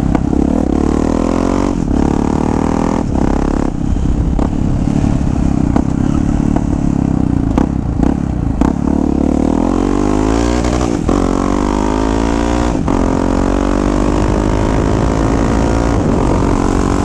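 Yamaha XT 660's single-cylinder engine running through an aftermarket stainless-steel exhaust, heard from the bike while riding: the engine pitch climbs and falls as it accelerates and eases off, with several short breaks and a clear rising rev about ten seconds in.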